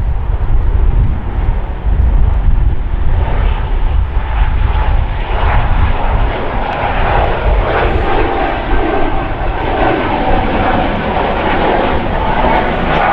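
Twin turbofan engines of an Embraer regional jet at take-off thrust as it lifts off and climbs away: a jet roar with a steady whine in it, building from about three seconds in and staying loud.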